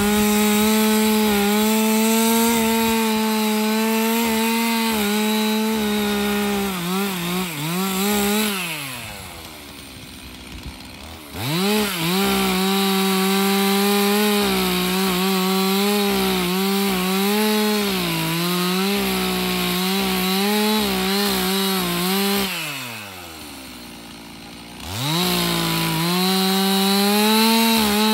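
Stihl MS 362 C 59 cc two-stroke chainsaw cutting old boards at high revs, its pitch dipping and wavering as the chain bites into the wood. Twice it drops back to idle for about two seconds and then revs up again for the next cut. The chain is old, stretched and no longer sharp.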